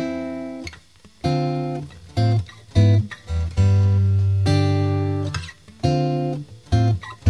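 Background music: guitar playing plucked notes and chords, each ringing out and fading before the next.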